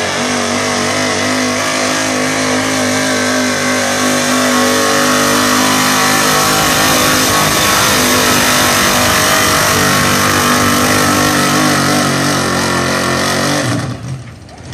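Pulling pickup truck's engine held at high revs under heavy load as it drags a weight-transfer sled down the track. It drops away sharply near the end as the pull finishes.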